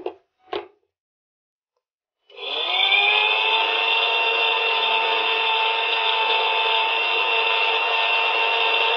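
Two short knocks, then about two seconds in an electric mixer grinder's motor starts, its whine rising briefly as it spins up and then running steadily as it grinds ginger, tamarind, jaggery and salt with a little water into a chutney paste.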